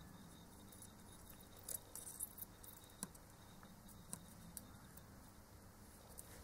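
Near silence, broken by a few faint, sharp clicks and light scratches in the middle: a soldering iron tip and solder wire working at the metal pins of a hard drive circuit board's SATA connector.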